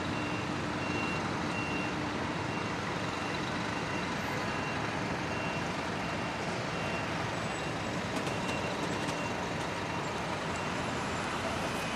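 Steady city street traffic noise, with a vehicle's reversing alarm sounding in regular short high beeps for the first several seconds.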